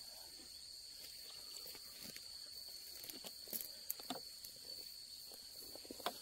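Steady high-pitched insect chirring outdoors, with a few soft scattered scuffs or clicks, likely footsteps or handling. No engine is running.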